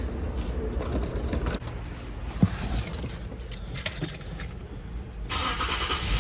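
Car keys jangling and clicking as they are handled, then a steady hum sets in suddenly about five seconds in as the Infiniti Q50 is switched on.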